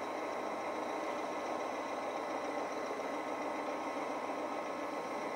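Iveco Daily 30-8 van's diesel engine idling steadily after a cold start at −12 °C, heard played back through a laptop's speakers.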